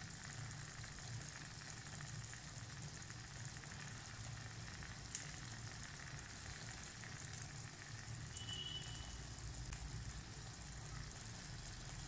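Thick brinjal and drumstick curry sizzling softly in a clay pot on the burner, its oil separated out, the sign that the thokku has reached its done stage. The faint, steady sizzle sits over a low hum, with a few light ticks.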